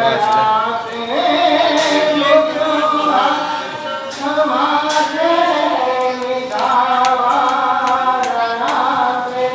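Singing in a chanting, devotional style: voices holding long notes that slide from one pitch to the next.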